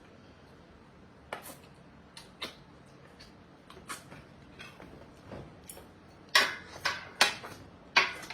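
Spoons and plates clinking: a few faint clicks, then several sharp, louder clinks in the last two seconds.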